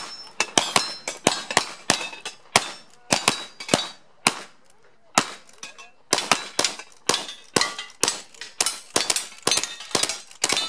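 Rapid, overlapping revolver shots from two shooters firing side by side, with hits ringing on steel knock-down targets. After a brief lull about four seconds in, the firing resumes quickly, and near the end lever-action rifle shots join in.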